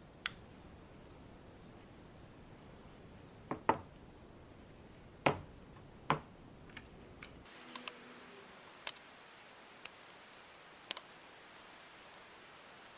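Sparse metallic clicks and light knocks of circlip pliers, wire piston-pin circlips and Skoda 105 pistons being handled and set down on a wooden workbench as the circlips are fitted. The loudest knocks come near the middle, with a few lighter clicks after.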